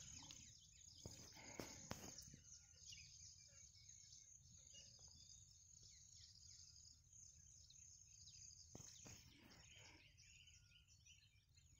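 Near silence: faint rural field ambience with a steady high insect trill, a few faint bird chirps, and a few soft knocks.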